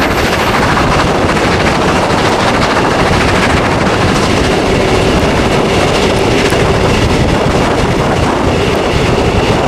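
Steam-hauled passenger train climbing a gradient, heard from an open coach window: a loud, steady rush of wind and wheels running on the rails with rail clatter. A faint steady whine comes in about halfway through.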